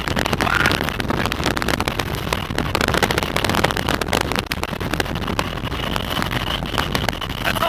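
Steady road and wind noise of a moving vehicle, with frequent crackles of wind buffeting the microphone.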